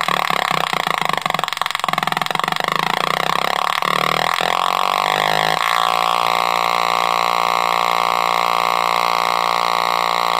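Atari Punk Console, a DIY 555-timer synth on a breadboard, buzzing loudly as its knobs are turned, the pitch jumping and gliding. About halfway through it settles into a steady buzzing drone.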